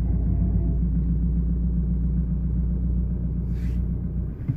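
VW 1.9 TDI ALH four-cylinder diesel running, heard from inside the car's cabin as a steady low rumble with a dull "bul-bul-bul" knocking: an unexplained foreign noise the owner is trying to trace.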